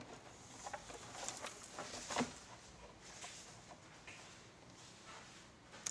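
Faint handling sounds: a few light clicks and scrapes of fingers and a small tool working a thin wire connector into its socket on a laptop screen panel.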